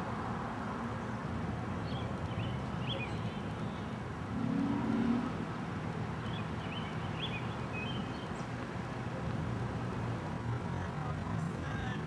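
Outdoor court ambience: a steady background rumble like distant road traffic, with birds chirping in short bursts twice. A brief low hum swells about four and a half seconds in.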